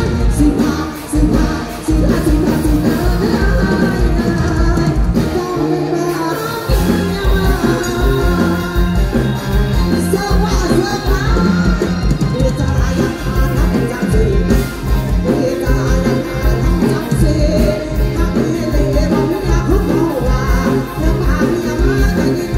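A female singer sings into a microphone over a live band's drums, bass and guitar, heard loud through a PA system with a steady beat. The lowest bass drops out briefly about six seconds in.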